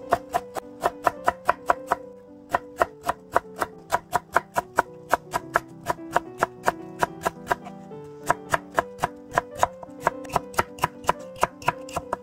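A kitchen knife chopping radish on a cutting board in quick, even strokes, about five a second, pausing briefly twice.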